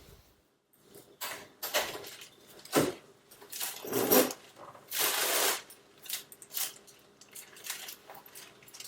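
Kitchen handling sounds: a string of knocks and clatters with short rushes of noise, the longest a little after five seconds in.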